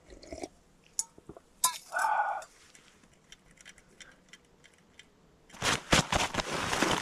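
A few light clinks of a small metal camp pot being handled, with a short ringing clank about two seconds in. In the last second and a half, loud, continuous rustling and crinkling of nylon tent fabric and a backpack being handled.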